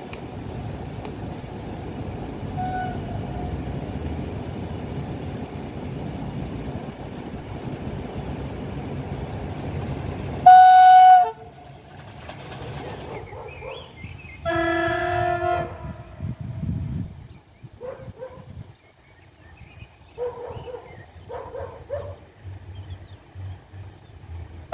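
Railway locomotive horn sounding: a short loud blast about ten seconds in, then a longer chord of several notes a few seconds later, and another starting at the very end. A steady low rumbling noise fills the first ten seconds.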